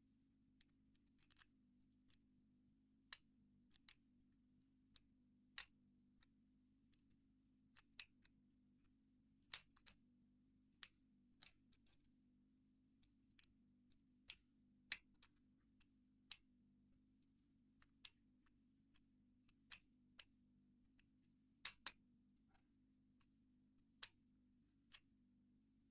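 Irregular small metallic clicks and ticks of homemade lock picks working in a Squire 660 padlock, about one or two a second, over a faint steady low hum.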